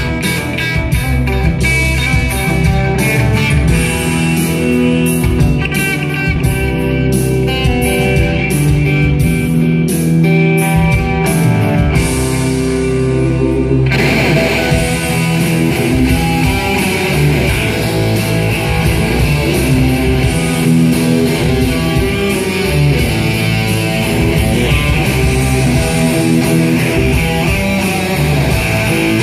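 Live rock instrumental led by an electric guitar played through stage amplifiers, a run of fast notes. About fourteen seconds in, the music switches abruptly to a fuller, brighter section.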